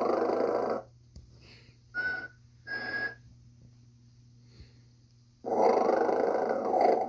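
Animated snoring Santa toy running its routine: a long, loud noisy snore, two short whistling tones, then another long snore near the end, over a steady low hum.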